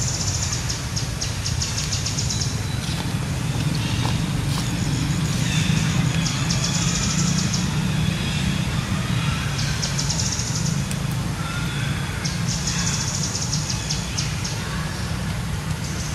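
Outdoor forest ambience: a steady low rumble under repeated high, rapid trills of a second or two each, coming every few seconds, with a few faint chirps.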